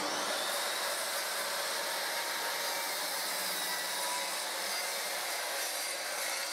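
Hand-held circular saw running steadily while it cuts across a wooden board.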